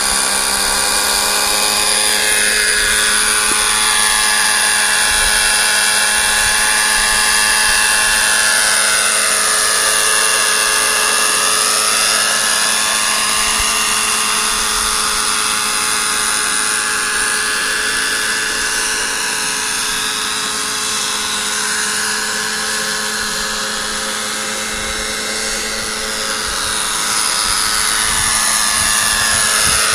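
Radio-controlled scale Bell 47G model helicopter running, its small smoking nitro engine and rotor giving a steady high whine that rises and falls in pitch as it lifts off and hovers low.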